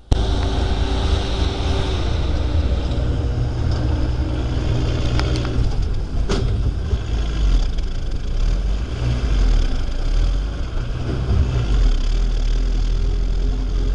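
Off-road vehicle's engine running with a heavy low rumble as it drives a rough track, with a few sharp knocks about five to six seconds in.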